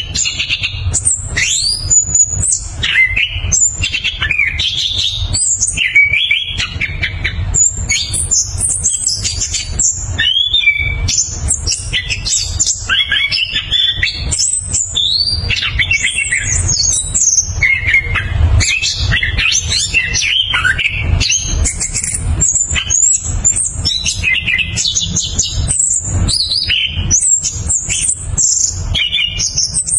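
Chestnut-capped thrush (anis kembang) singing a long, unbroken rolling song of fast, varied high whistles and chirping phrases, over a steady low rumble.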